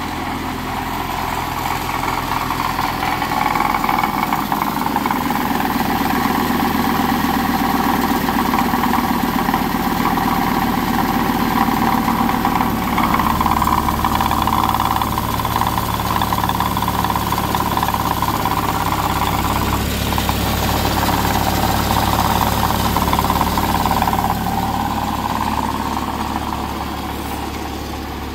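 A 2012 Chevy Colorado's 3.7-litre inline-five engine idling steadily, a little louder in the middle.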